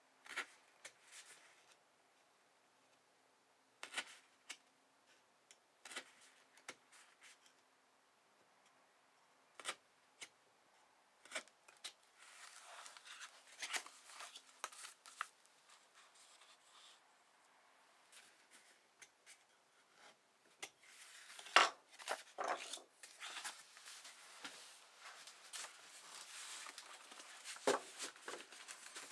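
Folded paper signatures being worked by hand: a few sharp taps and clicks, a few seconds apart, as sewing holes are pierced with an awl in a wooden cradle, then paper rustling. In the last third the rustling grows louder and denser, with knocks as the stack of signatures is jogged on a wooden bench.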